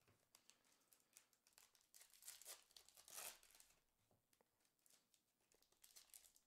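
Foil trading-card pack wrapper crinkling and tearing as it is opened by hand, faint, in a few short rustles, the loudest about two and three seconds in.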